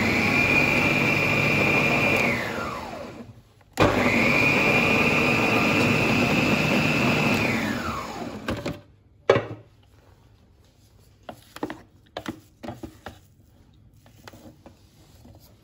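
Electric food processor grinding a thick mixture of cooked chicken and chana dal in two short runs, each a steady high motor whine that falls away as the blade spins down. Then a single knock, followed by faint scrapes of a wooden spatula in the bowl.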